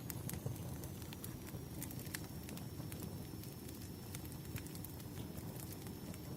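Wood fire burning: a steady low rumble of flames with irregular sharp crackles and pops from the burning firewood.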